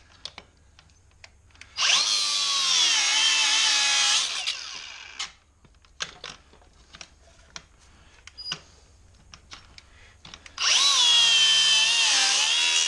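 Milwaukee cordless cut-off grinder run in two bursts of about two seconds each, cutting into a metal bracket. Its high whine dips in pitch as the wheel bites, then winds down. Light clicks and rattles come between the bursts.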